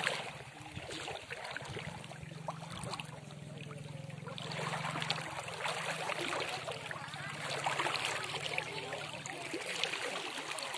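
Water sloshing and splashing as people wade waist-deep, growing louder from about four and a half seconds in, over a faint low steady hum.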